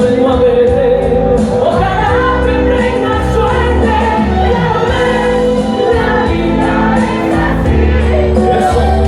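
A song: a singer's voice over instrumental backing with a sustained bass line.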